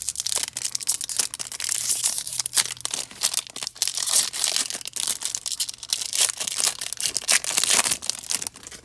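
Plastic trading card pack wrapper crinkling and being torn open, with a dense, irregular crackle throughout.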